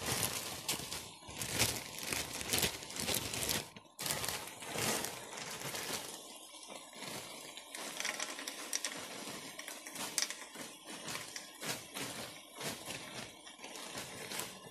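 A plastic bag of frozen peas crinkling as it is handled and tipped out over a frying pan, with a wooden spoon stirring the food. Irregular crackling throughout, breaking off briefly about four seconds in.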